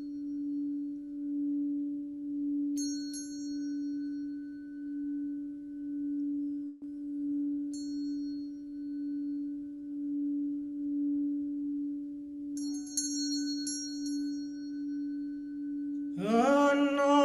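A sustained singing-bowl drone that swells and fades in a slow pulse about once a second, with a high chime struck a few times over it. Near the end a voice comes in, toning with its pitch sliding upward.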